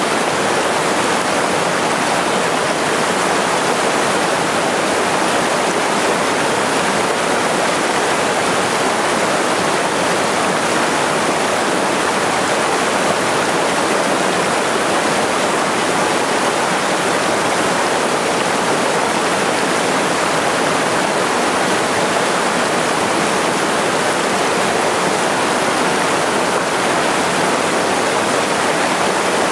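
A small waterfall on a mountain stream pouring into a rock pool: a steady, unbroken rush of water.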